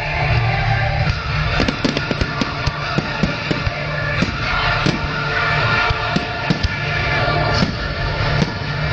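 Fireworks going off in a rapid string of bangs and crackles over loud music with a heavy bass.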